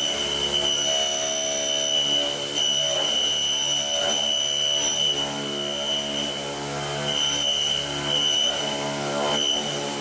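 A Doosan PUMA TT1800 CNC turning center running. A steady high-pitched whine sits over a motor hum whose pitch shifts every second or two, with short gliding changes in pitch, as from the spindle changing speed.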